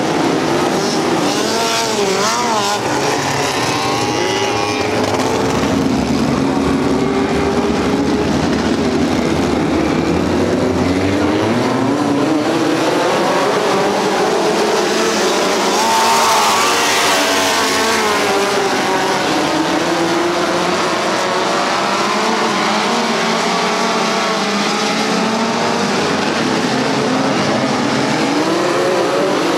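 Several dirt-track midget race car engines running together, their pitch rising and falling as the cars throttle off and back on through the turns and go past. The sound swells briefly about halfway through.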